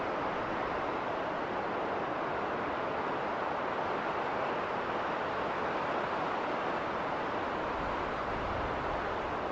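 Winter wind blowing through a snowstorm, a steady even rush with no gusts or breaks.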